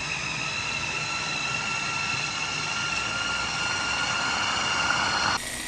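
Electric mini food chopper's motor running with a steady high whine as it chops shallots, garlic, chillies and candlenuts with water into sambal paste. The whine rises slightly in pitch, then drops abruptly in loudness near the end.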